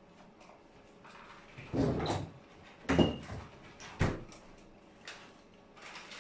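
Kitchen items being handled while a dipping sauce is mixed: a short scrape about two seconds in, then a clink with a brief ring and a sharp knock about a second apart.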